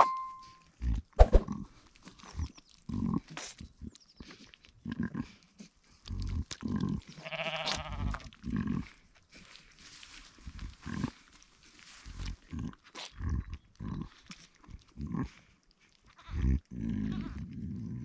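Ewe licking and nuzzling her newborn lamb, a run of short, low sounds through the whole stretch, with one drawn-out bleat about seven and a half seconds in.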